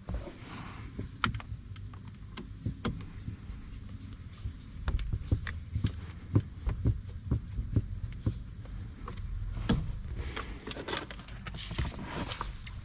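Hand work on a car's steering column: irregular small clicks and knocks of parts, screws and tools being handled, with scraping rustles near the end.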